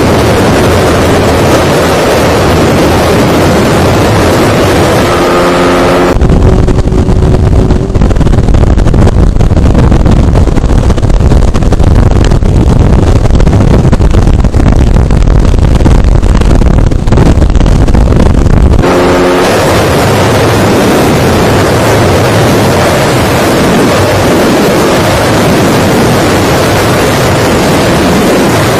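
Wind roaring over the camera microphone of a motorcycle ridden flat out in top gear, a dense steady rush. From about six seconds in until about nineteen seconds it turns into a heavy, deep buffeting rumble with the hiss gone, then the rush returns.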